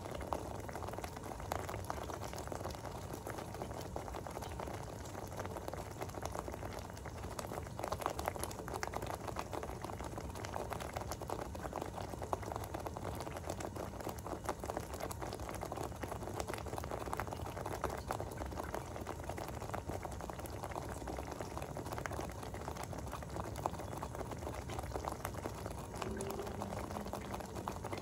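Thick tomato sauce bubbling in a pot: steam rising through the sauce bursts at the surface in a continual, irregular stream of small pops.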